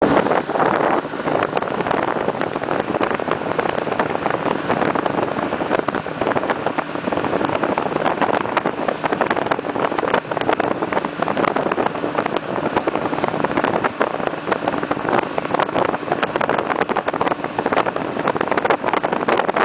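Motorboat under way: steady rushing wind buffeting the microphone, over the boat's running engine and water noise.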